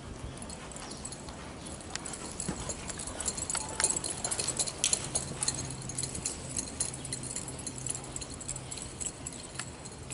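A horse's hoofbeats in soft arena dirt under a rider, with a quick, irregular jingle and rattle of tack. It grows louder about two seconds in and is busiest near the middle.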